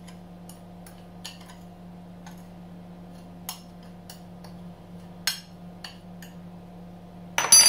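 A spoon stirring spices in a ceramic plate: scattered light clicks and scrapes of spoon on plate, then a louder cluster of clinks near the end with a brief ringing.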